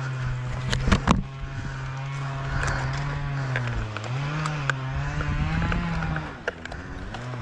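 Small two-stroke engine running at steady revs, then easing off and climbing back up, with a couple of sharp knocks about a second in.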